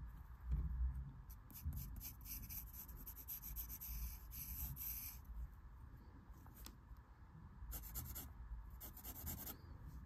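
Pencil drawing on paper: graphite scratching in strokes. There is a long run of strokes, then two shorter runs near the end, with a low thump about half a second in.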